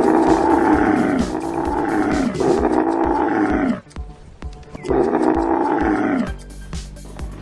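Dromedary camel calling loudly. Three long calls, each falling in pitch, run together for nearly four seconds, and after a short pause a fourth call follows.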